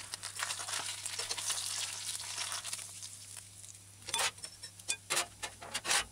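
Sprat frying in a shallow steel pan of hot oil: a light sizzle that thins out after two or three seconds. Then a few sharp clicks and taps of a fork against the pan and plate as the fish is lifted out.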